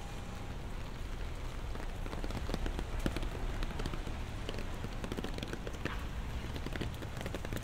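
Rain falling on a city street, with many irregular sharp drop ticks from about two seconds in, over a steady low rumble.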